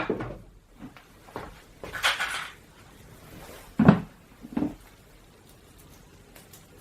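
A few separate knocks and a short scraping rustle about two seconds in, with the loudest knock about four seconds in; no drill is running.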